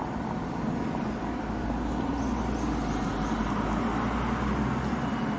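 Steady low rumble of vehicles, swelling slightly through the middle, with faint light ticking high up.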